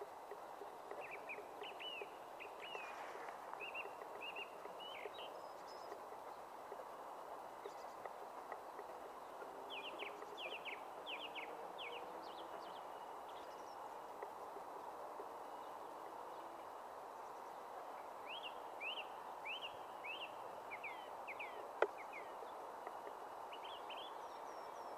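A songbird singing in several bursts of quick, falling chirps, over a steady outdoor hiss. One sharp click near the end.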